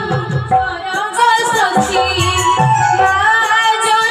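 Live Odia jatra theatre music: a voice singing a melody over steady drum beats and held instrumental tones.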